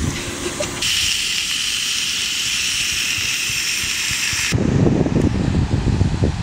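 Sausage, peppers and onions sizzling in a cast-iron skillet on a camp stove, a steady hiss. About four and a half seconds in it gives way to wind buffeting the microphone with a low rumble.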